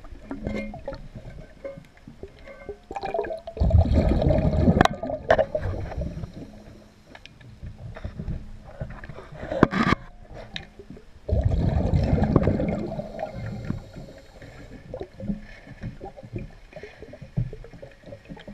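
Heard underwater: a diver's exhaled breath bubbling out in two bursts of about two seconds each, several seconds apart, over faint water gurgling. There is a sharp knock about halfway through.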